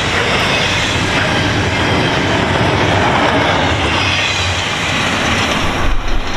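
Double-stack intermodal freight train's well cars passing at speed, the wheels rumbling and clattering over the rails as the tail end goes by and the noise carries on after it.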